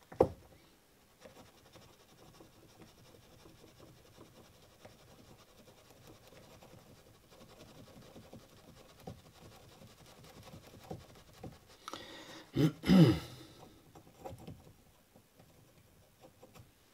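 Cotton swab rubbing polish onto the front cam of a Glock trigger bar, a faint scratchy rubbing that smooths the metal contact surface to take the gritty feel out of the trigger pull. A sharp click at the very start, and a brief louder noise about two-thirds of the way in.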